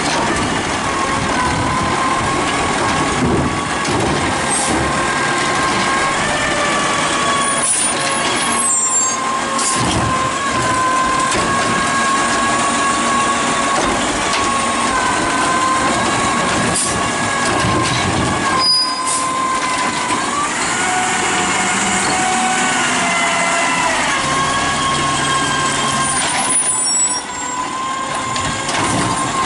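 2010 DaDee Scorpion automated side-loader garbage truck at work: its engine runs with a steady high whine from the hydraulic pump while the arm lifts, dumps and lowers a cart. About twenty seconds in, the whine rises in pitch as the engine revs, and the air brakes hiss briefly a couple of times.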